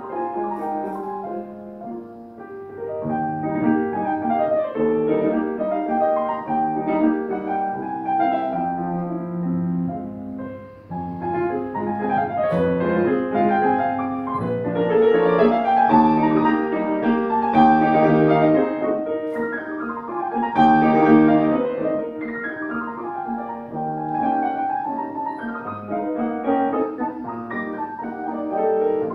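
Steinway grand piano played live: a solo piece of many quick, overlapping notes, swelling and falling in loudness, with a brief drop nearly to a pause about eleven seconds in.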